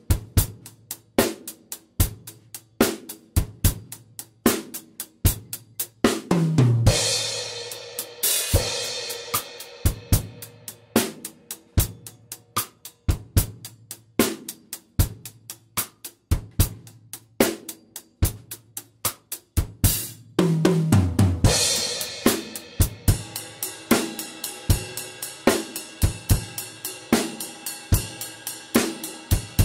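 Acoustic drum kit played solo, with no backing track: a steady groove of kick, snare and hi-hat. About six seconds in, a fill down the toms falls in pitch into a cymbal crash. Around twenty seconds in, a second tom fill leads into a groove carried by ringing cymbals.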